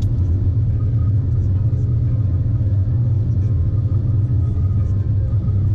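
Inside the cabin of a Volkswagen Polo VI 1.0 TSI, a three-cylinder turbo petrol, accelerating in fourth gear at about 165–170 km/h. The engine and road noise make a steady, loud low drone.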